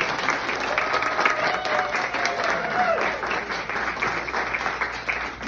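A small crowd of wedding guests applauding the newly introduced couple, with a few voices calling out over the clapping; the applause thins out near the end.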